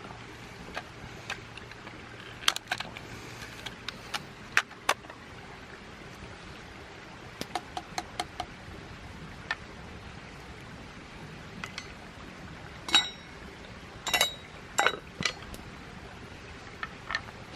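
Camp cookware and utensils being handled: scattered light clicks and taps, then a few louder metal clinks that ring briefly in the last third.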